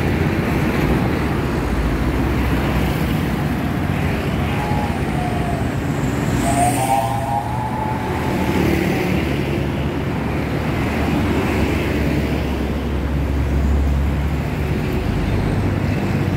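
Small single-cylinder engine of a walk-behind hand tractor running steadily as the tractor is driven along, with passing street traffic behind it.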